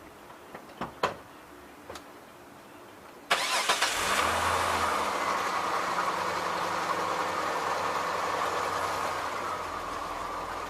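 A few light clicks, then about three seconds in the 2003 Hyundai Santa Fe's engine cranks briefly, catches and settles into a steady idle that drops a little near the end. This is the test start after fitting a new neutral safety switch: the engine starts.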